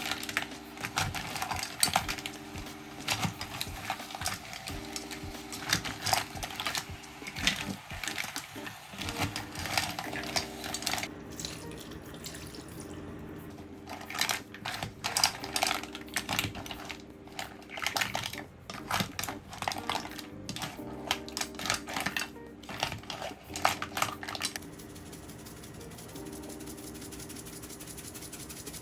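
Irregular clinking and clattering of a utensil and mussel shells against a dish, over soft background music. The clinking stops about 25 seconds in.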